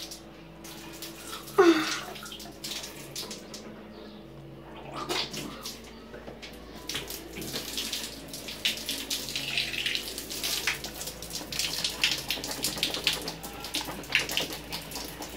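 Tap water running into a bathroom sink, with irregular splashing as a mouth is rinsed out after eating raw garlic. A brief loud falling squeak comes about one and a half seconds in.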